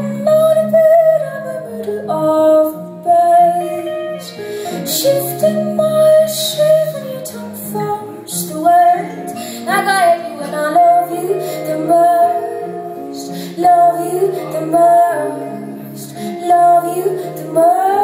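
A woman singing a slow melody live, accompanied by acoustic guitar chords.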